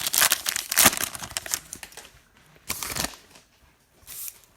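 Foil trading-card pack wrappers crinkling and tearing as packs are ripped open: a dense crackly rustle for the first second and a half, another short crinkle about three seconds in, and a fainter one near the end.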